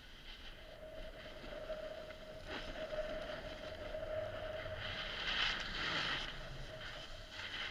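Snowboard sliding and scraping over packed snow, a steady rushing hiss that swells into a louder edge scrape about five seconds in as the board turns. A faint steady hum runs underneath.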